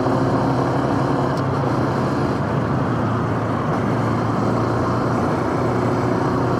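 Honda Super Cub C125's single-cylinder engine running steadily under way, with wind and road noise.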